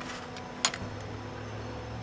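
A single sharp click of a hand tool or bolt being handled during assembly, about half a second in, over a low steady hum that sets in just after.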